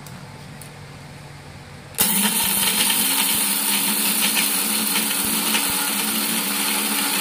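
Electric mixer grinder dry-grinding roasted urad dal, dried red chillies, tamarind and salt in its steel jar. The motor switches on suddenly about two seconds in and runs steadily at full speed with a constant whine and the gritty rattle of the dry ingredients being reduced to powder.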